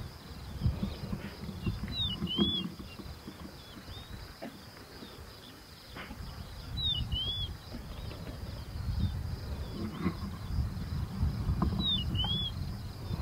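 Savanna ambience: a bird gives a short two-note whistled call three times, about five seconds apart, over a steady high insect drone and uneven low rumbling noise.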